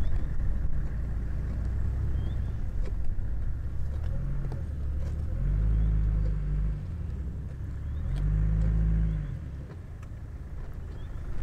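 A vehicle engine running with a steady low rumble. Its note swells twice for a second or so, about halfway through.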